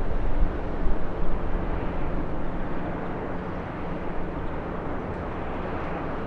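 Jet noise of an arriving Bombardier CRJ-900 regional jet with rear-mounted CF34 turbofans: a steady rumble that fades gradually.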